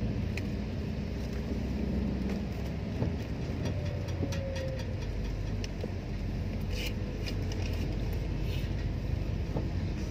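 Car engine running and tyres on a wet road, heard from inside the cabin while driving, with a few light clicks in the second half.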